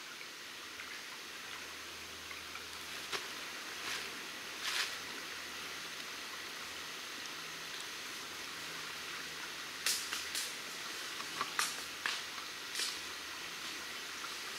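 Swamp water flowing gently, a steady soft hiss, with scattered sharp clicks and snaps through it, several in a cluster about ten to thirteen seconds in.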